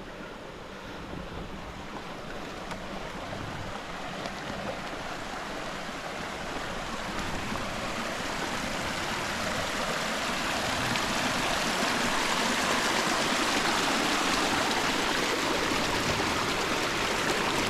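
Rushing river water, a steady noise that grows gradually louder throughout.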